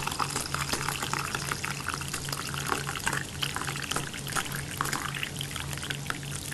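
Coffee pouring and splashing into a mug in a steady stream, with a low hum pulsing a few times a second underneath.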